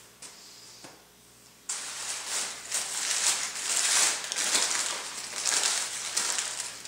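Paper cheeseburger wrapper crinkling as it is handled, starting suddenly about two seconds in and going on in uneven rustles; a couple of light taps come just before.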